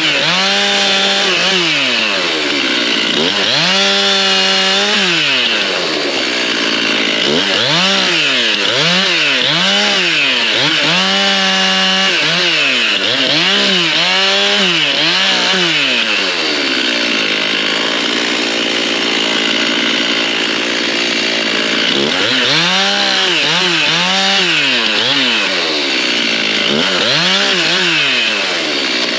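Stihl MS 391 two-stroke chainsaw delimbing hardwood: the engine revs up and drops back again and again as it makes quick cuts through the limbs, with a few seconds of steadier running in the middle.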